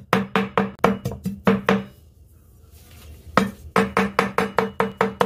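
Cleaver chopping ginger on a wooden cutting board: quick, even knocks with a short wooden ring, about four a second. They break off for a second or so about two seconds in, then start again a little faster.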